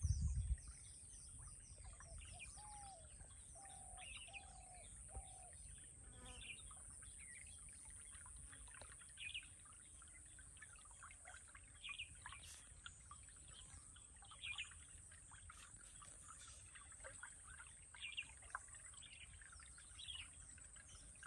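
Wild birds calling: short high chirps every second or two throughout, and a run of four lower, arched whistled notes a couple of seconds in, over a steady faint high-pitched hiss. A brief low rumble at the very start.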